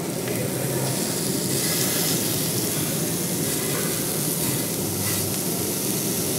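Raw meat and a shrimp sizzling on a hot tabletop Korean barbecue grill plate, a steady frying hiss.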